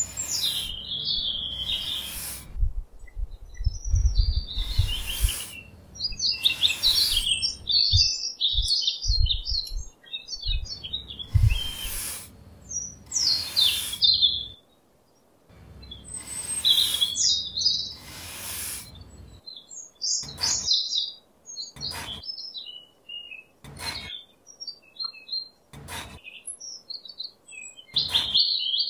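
Small birds chirping continuously, over repeated short scrapes of a small metal trowel dragged and dug through sand, about a dozen strokes, with low knocks during the first half.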